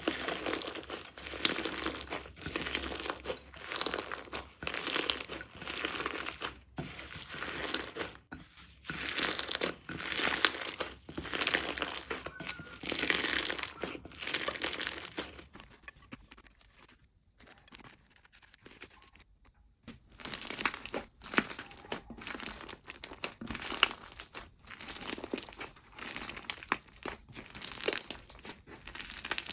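Slime being squeezed and pressed by hand, making crackly, crinkly squishes about once a second. About halfway through, the sound changes abruptly and goes quieter for a few seconds, then the squishing resumes.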